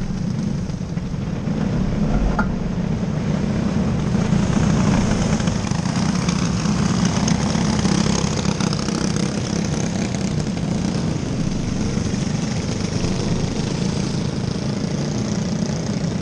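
Engines of several small winged dirt-track sprint cars running in a steady drone as the cars circle the track, with faint rising and falling engine pitch in the middle and a brief click about two seconds in.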